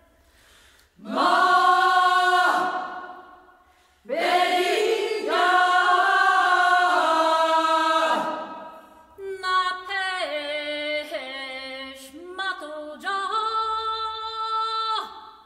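Women's choir singing sustained chords: a short held chord, a pause, a longer held chord, then a phrase that moves from note to note in the last six seconds.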